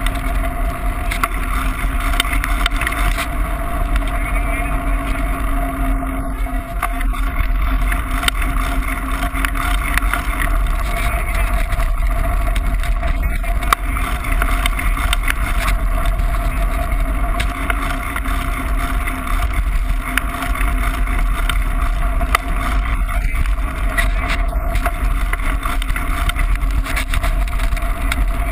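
Mountain bike coasting fast downhill on a rough lane, heard through a bike-mounted action camera: a steady, loud rush of wind on the microphone and tyre noise, with a constant low hum and many small rattles and clicks.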